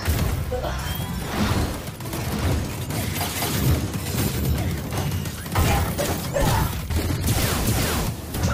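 Action-movie soundtrack: music under heavy crash and clanking metal sound effects for a giant robot fight, with a loud crash about five and a half seconds in.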